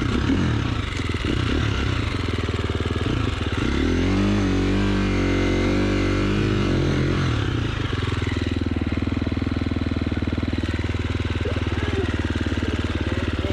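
KTM enduro dirt bike engine idling, revved up about four seconds in, held briefly and dropped back to a steady idle.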